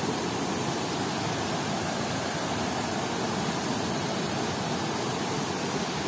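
Waterfall running, a steady, even rush of falling water.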